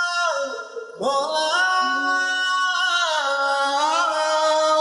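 Background music: a man singing long, held notes that slide between pitches on the word 'maula' in a Sufi devotional song.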